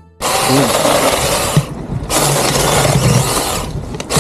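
Gardtech 6-inch electric mini chainsaw running and cutting through tree branches. The cutting noise eases off briefly about two seconds in and again near the end, while the motor keeps humming.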